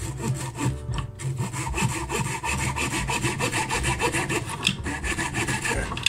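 A small hand saw cutting through a ficus branch in quick, steady back-and-forth strokes.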